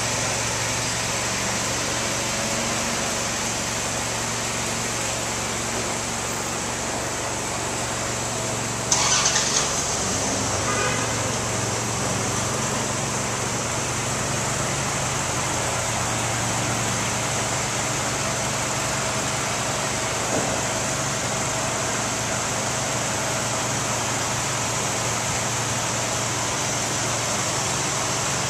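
Steady city street noise with a vehicle engine's low hum running under it. About nine seconds in there is one sudden loud sound, followed by a short pitched tone.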